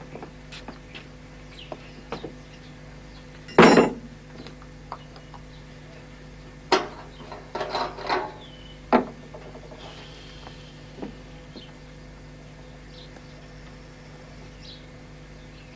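Irregular metallic knocks and clanks as parts of a vintage stationary engine are handled and adjusted by hand. The loudest clank comes a few seconds in, with a quicker run of knocks a few seconds later.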